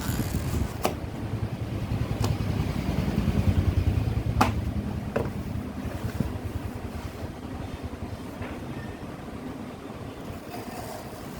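A motor running with a low, pulsing rumble that swells in the first half and eases off, with a few sharp clicks or knocks over it.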